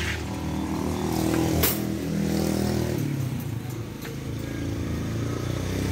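Motorcycle engine running close by, its pitch rising and falling, with a couple of sharp clicks.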